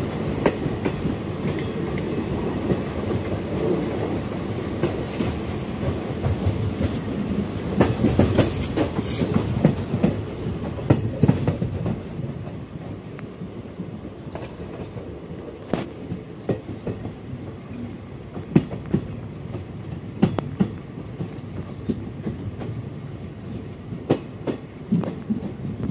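Passenger train coach running along the track, heard from the open doorway: a steady rumble of wheels on rail with sharp clicks as the wheels cross rail joints. The rumble is heavier for the first twelve seconds or so, then eases, leaving lighter running with a click every second or two.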